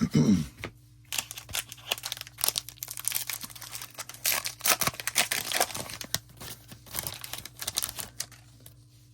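A sealed trading card pack's wrapper being torn open and crinkled, a busy run of crackles and rips that stops shortly before the end.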